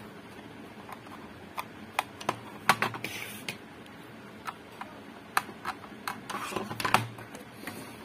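Scattered clicks, taps and knocks of a plastic digital multimeter case being handled and closed up. A screwdriver works at its back cover, with a short scrape about three seconds in and a busier run of clicks near the end.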